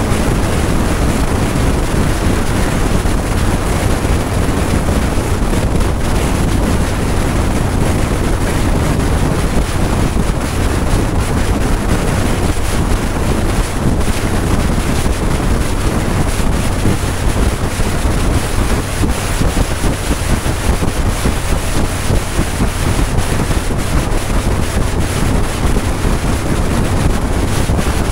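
Loud, steady wind buffeting the microphone of a camera on a motorcycle travelling at highway speed, with a low rumble of engine and road beneath it.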